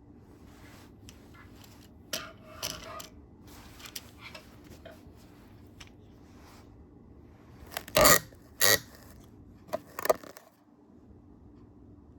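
Handling noise from a camera being fitted and adjusted on a tripod: scattered clicks and scrapes, then two loud sharp knocks about eight seconds in and a few more clicks shortly after.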